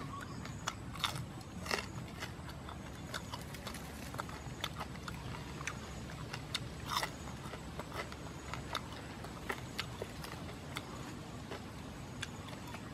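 A man chewing mouthfuls of roasted pig meat, with irregular wet clicks and smacks of the mouth over a steady low rumble.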